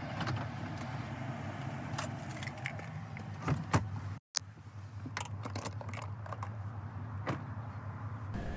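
Handling noise as someone climbs out of a parked car: scattered clicks and knocks, the loudest about three and a half seconds in, over a steady low hum. The sound cuts out for a moment just after four seconds.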